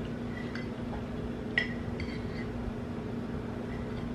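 Metal spoon clinking against a plate while scooping muffin and whipped cream. One clear ringing clink comes about a second and a half in, with fainter taps around it, over a steady low hum.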